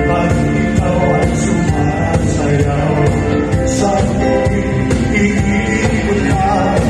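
Live band music with singing, played at a steady loudness.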